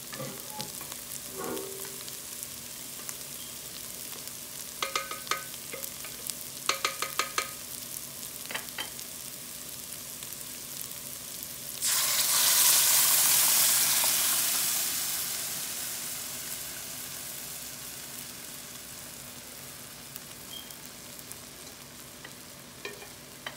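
Onion, garlic and spice tempering sizzling gently in a hot pot, with a few light clinks of a utensil against the pot. About twelve seconds in, cooked dal is poured into the hot oil and a loud sizzle starts suddenly, then slowly dies away over several seconds as the dal settles.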